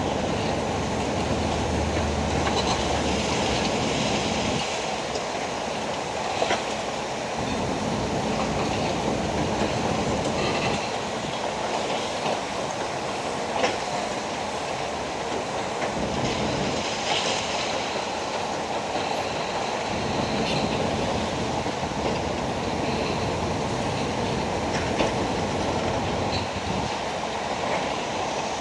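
Demolition machinery breaking down a concrete apartment building: a steady rumble and clatter of crushing and falling rubble, with a few sharp knocks.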